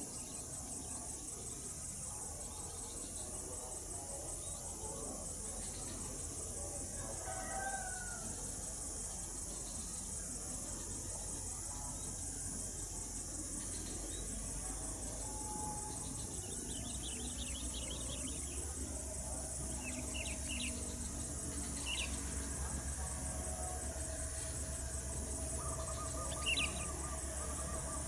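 Low rumble of an approaching CC 205 diesel locomotive, growing louder through the second half, under a steady high insect hiss and a few short bird chirps.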